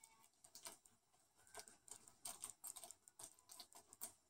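Faint, irregular crinkling and ticking of iridescent cellophane being pushed around and wrinkled in wet resin with a wooden craft stick.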